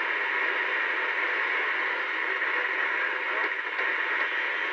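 Superstar 3900EL CB radio's speaker giving out steady static hiss while the channel selector is stepped down through the channels: no station is being received.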